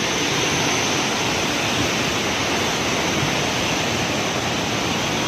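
Waterfall rushing with a steady, even roar, swollen by rain.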